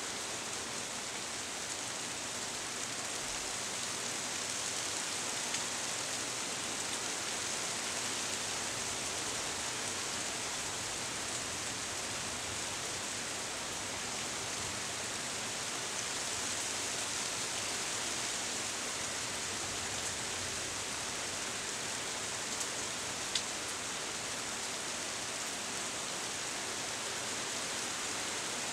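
Steady rain shower: an even, unbroken hiss of falling rain, with a few single drops ticking louder now and then.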